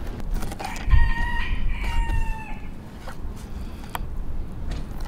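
A rooster crows once, a drawn-out call of about two seconds starting near the first second. Sharp clicks of a knife against a wooden cutting board come now and then as a raw chicken is cut up.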